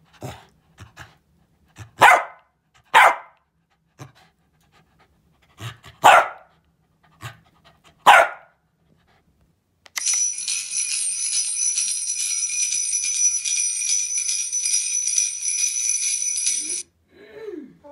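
A small spaniel barks about seven times in the first half, sharp single barks a second or two apart. Then a tablet's 'Naughty or Nice' scanner app makes a steady, high electronic buzz with a fast flutter for about seven seconds. The buzz cuts off just before the end.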